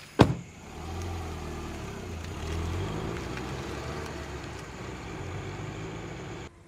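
A car door shuts with a single sharp knock just after the start. Then a car engine runs with a steady low hum, a little louder from about two and a half seconds in, and cuts off abruptly near the end.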